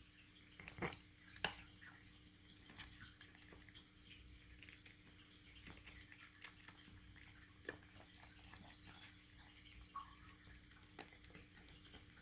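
A cat eating mashed food from a slow-feeder bowl: faint wet smacking and small clicks of tongue and teeth against the bowl, with two louder clicks about a second in.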